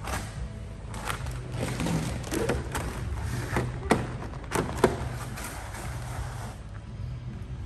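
Paint protection film being worked onto a car hood by hand: a run of short scrapes and knocks that stops about six and a half seconds in, over a steady low hum.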